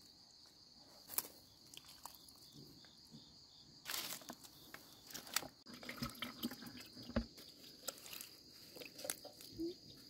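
Water poured from a ladle onto the soil at the base of a garden plant, splashing as it floods the ground, over a steady chirring of crickets.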